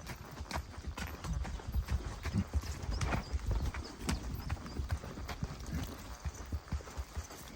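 Footfalls on a dirt forest path, a continuous run of irregular knocks and low thuds, several a second.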